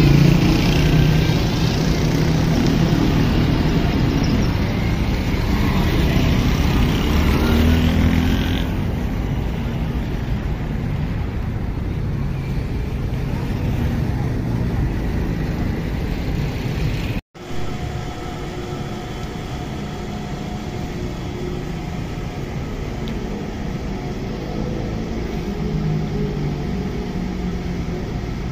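Motor vehicle engine running steadily, with a low rumble, and a brief break in the sound about seventeen seconds in.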